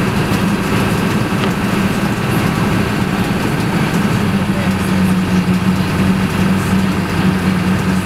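Vehicle engine running with a steady low hum and an even rushing noise, heard from inside the cab while driving on a snow-covered road.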